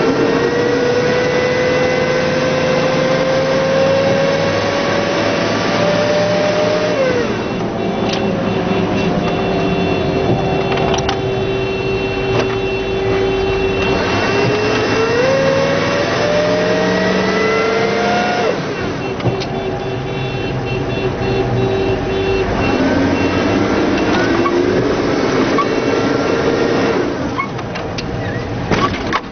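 Humvee's diesel V8 engine and drivetrain running under way. A whine climbs slowly in pitch as the vehicle gathers speed, then drops sharply about seven seconds in and again near eighteen seconds as the transmission shifts up.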